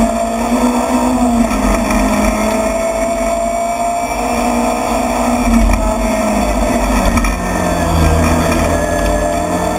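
Rally car's engine heard from inside the cockpit, driven hard on a special stage, its note climbing slowly and then dropping to a lower pitch about seven seconds in, with road and tyre noise underneath.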